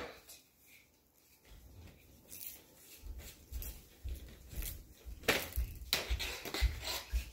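Plastic hula hoop being swung and dropped, with irregular soft low thumps and a few short sharp knocks as it swings and lands.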